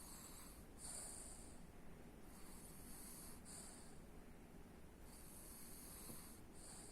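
Quiet snoring of a sleeping person: slow, hissy breaths, each a longer draw followed by a short one, recurring roughly every three seconds.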